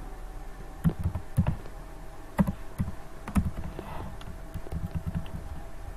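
Computer keyboard being typed: a handful of separate keystrokes at uneven intervals, with a short quick run of keys near the end, over a faint steady electrical hum.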